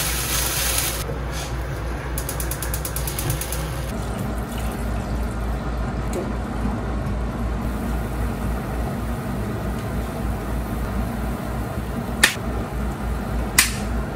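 Soup simmering in an iron frying pan with pork belly, daikon and carrot, a steady bubbling hiss, with two sharp clicks near the end.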